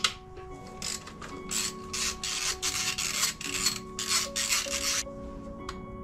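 Socket ratchet working a bracket bolt loose in a car engine bay: a run of short rasping ratchet strokes, two or three a second, from about a second in until shortly before the end.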